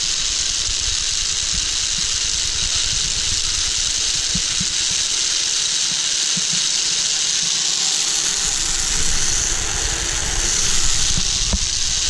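Steady rushing noise as the sky cycle rolls along its overhead cable, with wind buffeting the action camera's microphone in uneven low rumbles.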